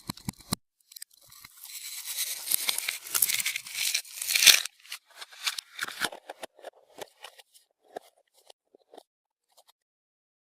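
Slime being worked by hand: a dense, crackly, sticky noise builds for about three seconds and stops sharply, then scattered small pops and clicks thin out.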